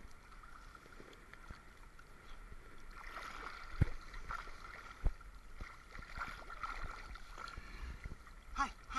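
Sea water lapping and sloshing around a camera held at the water surface, with a couple of dull knocks about four and five seconds in.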